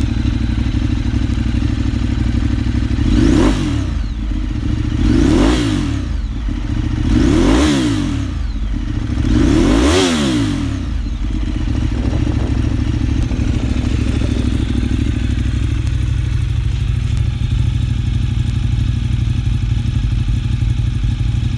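2012 Ducati 848 Evo's L-twin engine idling through a Termignoni exhaust. It is revved four times, about two seconds apart, in the first half; each rev climbs and drops back quickly before the engine settles into a steady idle.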